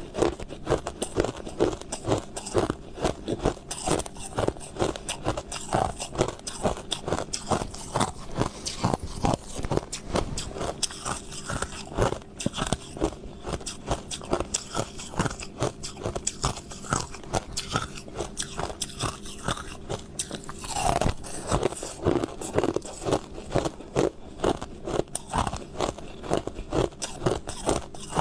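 A person biting and chewing crushed ice close to the microphone: rapid crunching, several crunches a second, with a denser spell of crunching about two-thirds of the way through.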